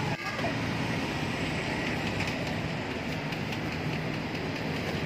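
Steady mechanical rumble and hiss with a low hum underneath, keeping an even level throughout.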